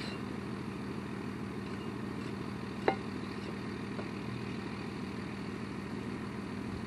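An engine running steadily at idle, a constant low drone, with one sharp knock about three seconds in.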